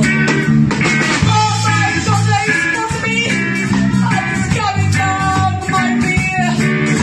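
Punk rock song: a woman sings over electric guitars, bass and drums.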